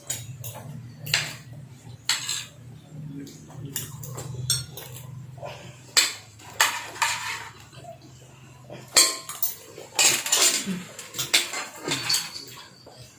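Cutlery clinking and scraping against plates during a meal, in many irregular sharp clicks, over a low steady hum that stops about nine seconds in.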